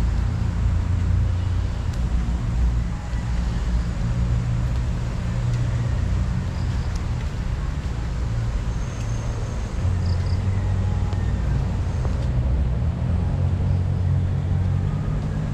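Steady low rumble of city road traffic, with a faint even hiss over it.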